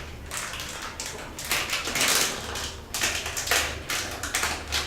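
Cornflour being spooned into a bowl of marinated chicken: a run of spoon scrapes and light taps against the container and bowl, loudest about two seconds in.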